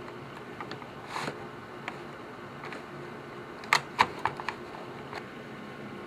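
Light clicks and taps of cable plugs and plastic being handled as cables are plugged into an opened Mac Mini, with a quick run of sharp clicks about four seconds in, over a low steady background hum.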